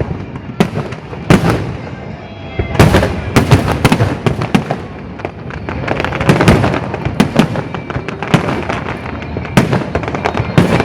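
Fireworks bursting in a rapid, irregular string of loud bangs, each trailing off in a short echo, with several bangs often close together.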